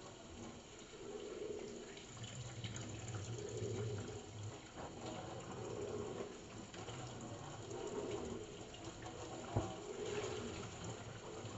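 Tap water running into a stainless steel sink while the basin is scrubbed with a cloth, the rubbing swelling and fading every couple of seconds. A single knock near the end.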